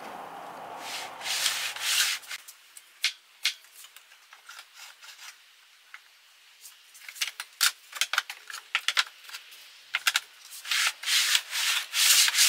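Rubbing and scraping strokes, in two longer bouts with many short clicks and taps between them. A low steady hum stops about two seconds in.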